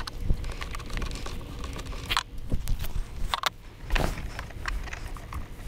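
Irregular metallic clicks and clinks of a wrench and terminal hardware being handled on RV battery posts, with two sharper clanks about two and three and a half seconds in, over a low rumble.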